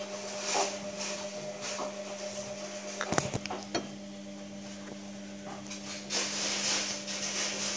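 Plastic K'NEX pieces clattering in a few sharp knocks about three seconds in, over a steady low electrical hum and a soft hiss.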